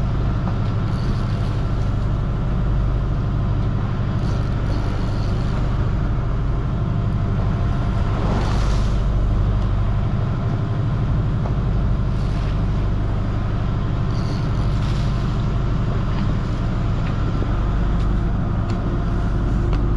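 Fishing boat's onboard motor running with a steady, loud low hum.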